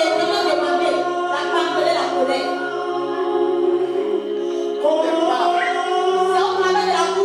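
Voices singing together over steady held low notes.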